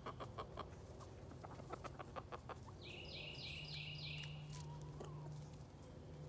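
A flock of chickens feeding on scattered treats on dry straw-covered ground: many small sharp taps of beaks pecking, with soft low clucking. A quick run of four high notes sounds about three seconds in.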